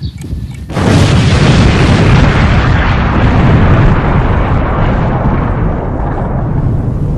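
Explosion sound effect: a few clicks, then a sudden loud blast less than a second in, followed by a long rumble that slowly dies away.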